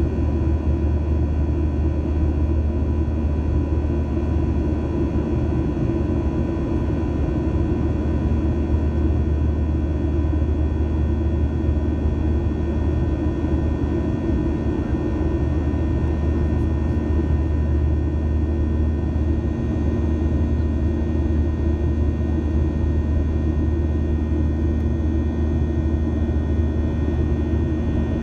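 Jet airliner heard from inside the passenger cabin in flight: a steady, loud low rumble of engines and airflow with several faint steady whining tones above it, unchanging throughout.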